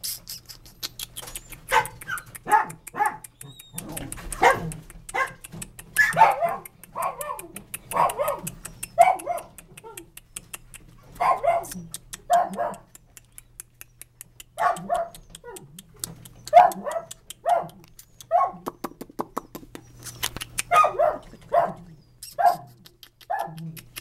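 Miniature dachshund barking repeatedly in short, sharp barks, mostly in quick runs of three to five with brief pauses between runs.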